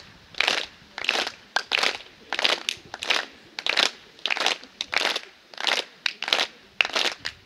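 Footsteps crunching at a steady walking pace, about one and a half steps a second.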